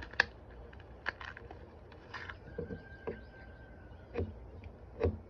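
A Swiss Army knife tool's spine scraped and clicked against a small ferro rod in a few short, light strokes; the spine is too dull to strike it properly.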